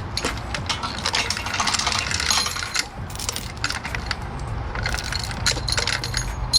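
Engine hoist being lowered so the engine's weight settles onto an engine stand: a run of metallic clinks, rattles and small ringing knocks from the hoist chain and steel hardware.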